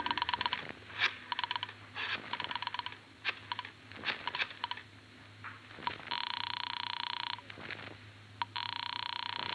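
Old-time radio telephone sound effect: a rotary dial clicking off several digits, then two rings on the line, each just over a second long.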